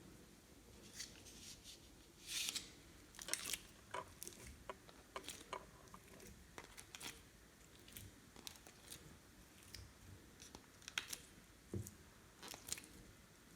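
Slime being kneaded and stretched by hand, making faint, scattered sticky clicks and pops with a few short crackly bursts.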